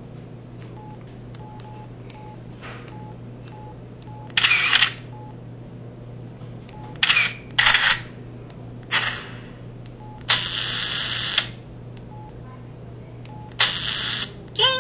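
A mobile phone playing its built-in camera shutter sound effects one after another through its speaker: six short bursts, one lasting about a second, with a faint short beep repeating in the first few seconds.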